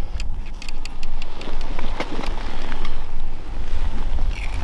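Wind buffeting the microphone in gusts, with a few light clicks in the first second or so.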